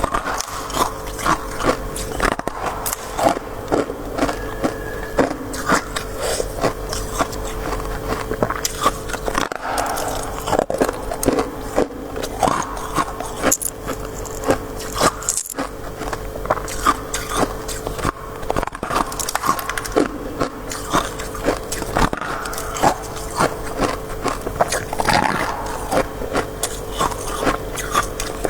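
Close-miked biting and chewing of crisp freezer frost (shaved-ice-like frost scraped from a freezer), with dense, irregular crunching and crackling throughout.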